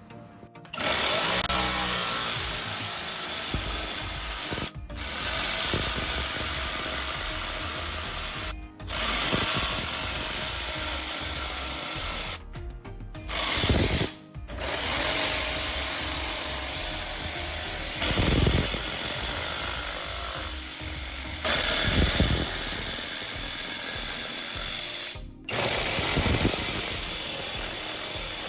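Angle grinder converted into a power saw running and cutting wood with its hand-saw blade, a loud steady motor-and-cutting noise broken off abruptly several times and swelling now and then.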